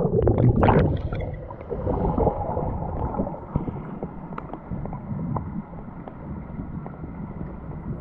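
Muffled underwater sound picked up by a camera being swum through a pool: splashing and gurgling in the first second or so as it goes under, then a steady low rumble of water with a few faint clicks.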